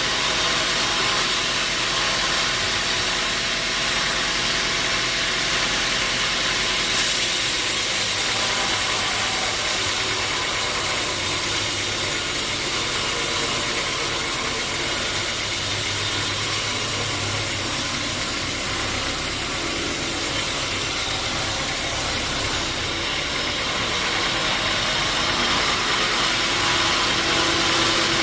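Sawmill machinery running steadily. A brighter, high-pitched hiss joins in about seven seconds in and drops away about sixteen seconds later.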